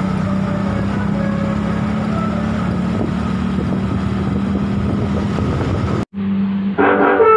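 Bus engine running with a steady low hum while wind buffets the microphone. About six seconds in the sound cuts out abruptly, and near the end a string of loud pitched notes begins.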